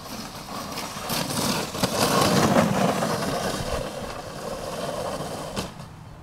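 Sled sliding fast down a snow slope: a rushing scrape over the snow that swells as it comes closer, is loudest in the middle, then dies away as the sled slows to a stop.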